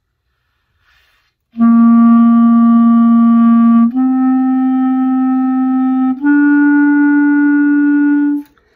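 Clarinet playing a long-tone exercise: three held notes, written C, D and E, each a step higher and held a bit over two seconds, tongued so each starts cleanly with a slight break between them. A faint intake of breath comes about a second in, before the first note.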